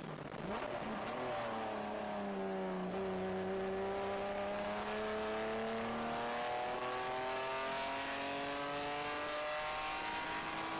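BMW E30 race car's M20 straight-six engine heard from inside the cockpit under acceleration: its pitch dips briefly in the first second, then rises slowly and steadily as the car pulls down a straight.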